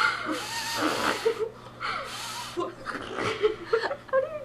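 Fake fart noises made by people: two long, noisy blasts of breath in the first couple of seconds, followed by short bursts of giggling and chuckling.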